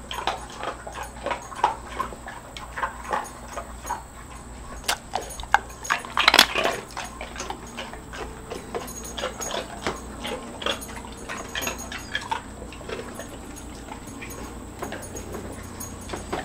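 Dog crunching ice cubes in its mouth: irregular crunches and clicks, with a loud cluster of crunches about six seconds in.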